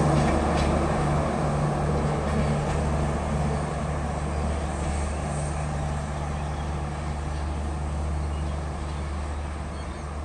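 Banalata Express passenger train rolling away along the track, its steady low diesel hum and running noise slowly fading as it recedes.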